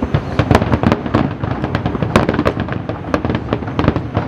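Aerial fireworks going off: a rapid, irregular run of sharp bangs and crackles.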